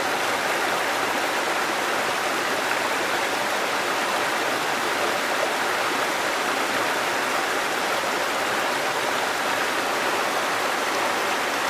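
Falling water rushing in a steady, unbroken stream, like a small waterfall.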